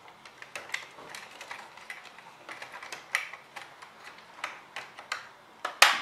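Irregular light clicks and taps of metal and plastic as fingers work the LGA775 CPU socket's retention lever and clip and nudge cables inside a desktop computer case, with a sharper clack near the end.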